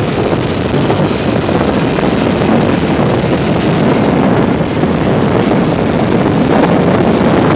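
Steady wind rush on the microphone of a moving motor scooter, mixed with the scooter's engine and road noise.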